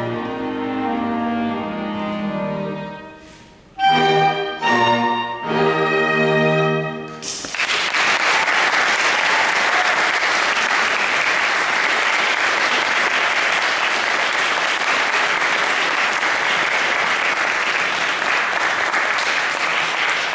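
Clarinet quartet of clarinet, violin, viola and cello playing the last bars of a classical piece, closing after a brief pause with three short, loud chords. About seven seconds in, audience applause breaks out and continues steadily.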